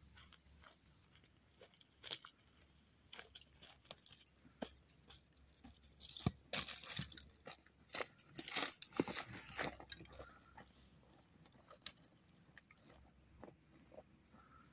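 Irregular crunching and clicking sounds, thickest and loudest in a run from about six to ten seconds in.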